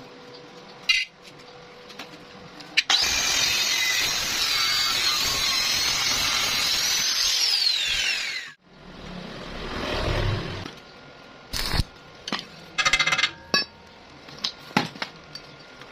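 Angle grinder starts suddenly and runs for about six seconds, then its whine falls in pitch as it spins down and stops. A brief swell of noise and scattered clicks and knocks follow.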